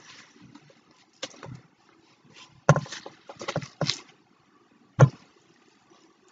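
Sticky slime with foam beads mixed in being worked by hand and spatula: a handful of irregular wet squelches and crackles, busiest about three seconds in, with one sharp squish near five seconds.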